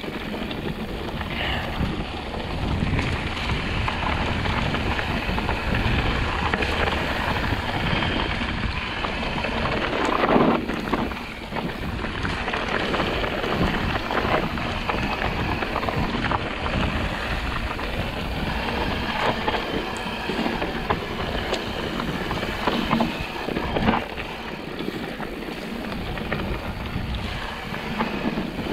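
Mountain bike descending a dirt trail, heard on board: wind rushing over the microphone, tyres running on dirt and gravel, and the bike rattling, with a few harder knocks over bumps.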